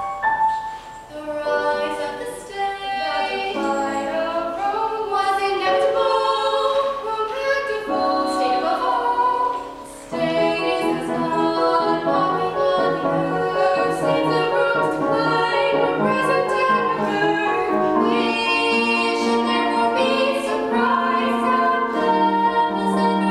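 A stage cast singing together, several voices including women's in overlapping lines. The sound thins briefly about ten seconds in, then returns fuller.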